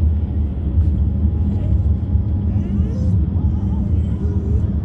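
Steady low road and engine rumble inside a moving car's cabin, with an excited dog giving a few faint, short whines over it.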